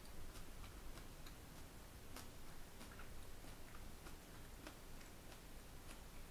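Quiet room tone: a low hiss with faint, irregular ticks and clicks scattered through it.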